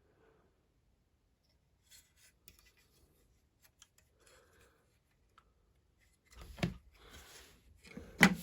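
Plastic LEGO pieces being handled: faint small clicks and rustles, then louder rubbing with two sharp knocks, the loudest near the end.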